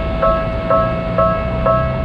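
Japanese railroad crossing warning bell ringing, a bright clanging tone repeated about twice a second, four strikes here.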